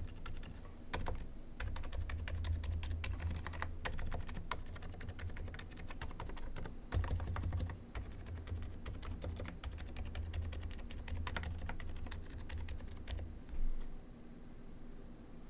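Fast, continuous typing on a mechanical keyboard: many soft key presses a second with brief pauses, and one louder knock near the end.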